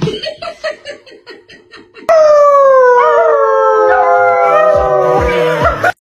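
A loud, long animal howl: one drawn-out call, sudden at the start, slowly sinking in pitch and wavering partway through. Before it come about two seconds of soft, even ticking, about five a second.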